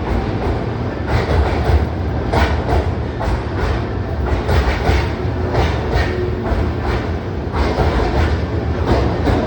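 Keihan electric train running along the track: a steady low rumble with frequent short clacks.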